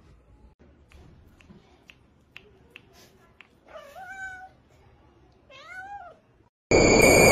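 A cat meowing twice, each meow rising then falling in pitch, after a few soft clicks. Near the end a much louder rushing noise with high, steady whistling tones cuts in suddenly.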